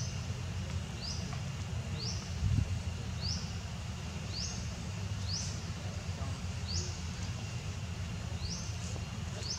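A short, high chirp rising in pitch, repeated about once a second, over a steady low rumble, with a low thump about two and a half seconds in.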